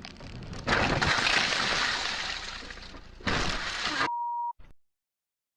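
Vehicle collision: a sudden loud crunching impact under a second in that fades over about two seconds, then a second loud burst of crash noise. A short steady beep follows, then an abrupt cut to silence.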